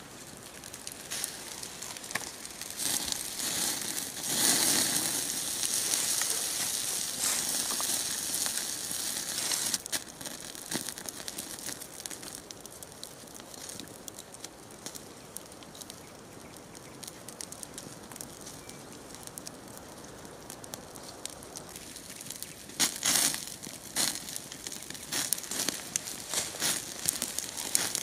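Wood fire crackling, with a louder stretch of rustling noise from about four seconds in to about ten seconds in, and a run of sharp snaps near the end.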